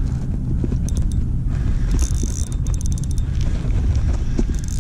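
A spinning reel being cranked in against a hooked fish, giving several short bursts of rapid fine ticking, over a steady low rumble of wind on the microphone.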